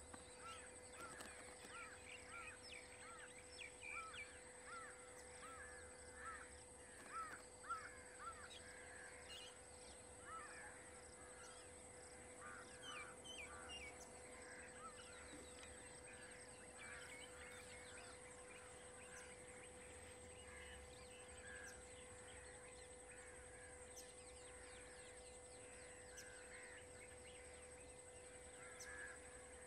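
Faint chorus of short, repeated bird calls, many in the first half and thinning out later, over a steady faint hum.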